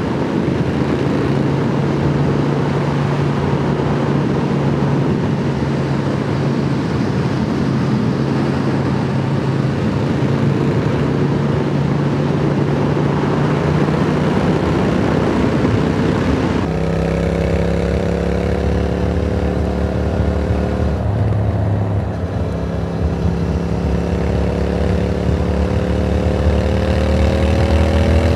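Triumph Speed Twin parallel-twin engine running at a steady cruise under heavy wind rush. About two-thirds through, the wind eases and the engine note drops as the bike slows. After a shift it rises steadily as the bike accelerates.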